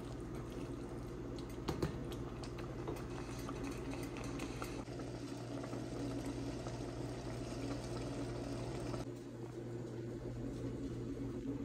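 Spaghetti and meatballs in tomato sauce simmering in a steaming pot, a steady bubbling hiss with small pops. About nine seconds in it drops away, leaving a low steady hum.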